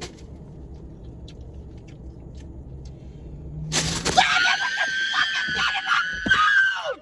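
A woman screams, a loud high-pitched shriek held for about three seconds that starts a little past halfway and drops in pitch as it ends: a shocked reaction to seeing a bug crawl out of her taco.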